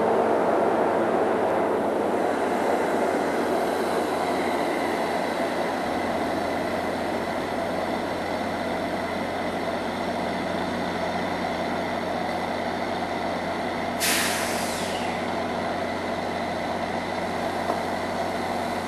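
NJ Transit commuter train of Comet coaches: a steady rumble and hum from the rail cars that slowly fades. About three-quarters of the way through comes one short, sharp hiss of air, like an air brake venting.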